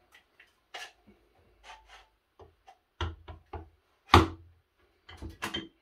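Clicks and knocks of a one-handed quick bar clamp being handled and set against a wooden board to clamp it to the table, with one loud knock about four seconds in.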